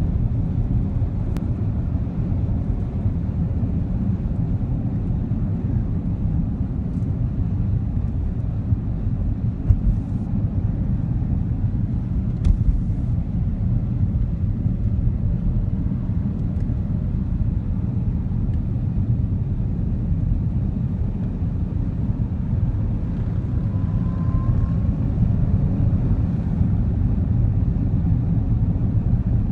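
Steady low rumble of a car's road and engine noise heard from inside the cabin while driving, with a few faint clicks.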